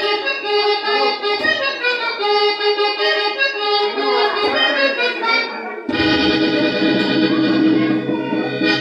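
Cumbia accordion playing a melody of held notes, played loud over a party sound system; about six seconds in a fuller passage with bass comes in under it.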